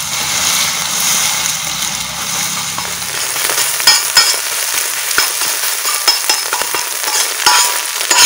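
Egg sizzling in hot oil on a large flat metal tawa, while a metal spatula scrapes and chops it into scrambled egg (egg bhujia). From about four seconds in the spatula strikes the pan in quick runs of sharp clicks over the steady sizzle.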